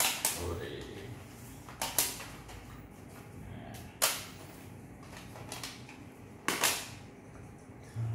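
Plastic cassette tape cases clacking against one another as they are picked up and stacked, a few sharp clicks at irregular intervals, some in quick pairs.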